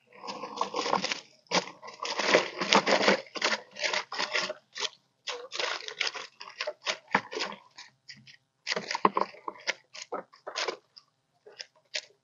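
Irregular crackling and rustling of a wet mesh trap net (lú) being hauled over the side of a small plastic boat, in dense bursts with short pauses, busiest in the first half.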